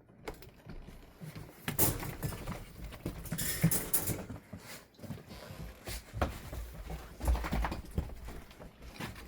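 Strong wind gusting over the microphone in uneven rushes, with a heavy low rumble, after a click at the very start.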